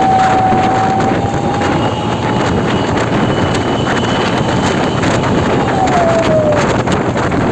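Heavy bus traffic passing close by: a loud, steady rush of engine and road noise, with wind on the microphone. A thin whine runs through it and drops in pitch about six seconds in.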